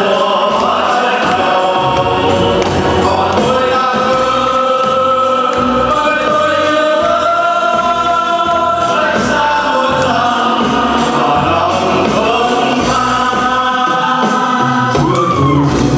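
Background music: a choir singing held notes over a steady beat.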